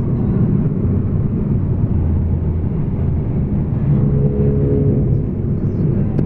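Steady car cabin noise while driving: low engine and tyre rumble on a paved road, heard from inside the car.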